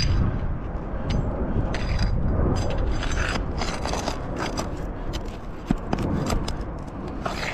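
A hand tool scraping and clicking against brittle asphalt shingles and their nails, in a run of short, irregular strokes as shingles are pried up, over a low rumble.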